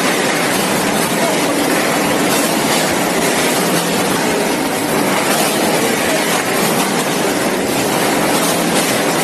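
Automatic vertical packing machine for frozen chicken legs running, with a steady mechanical din at a constant level.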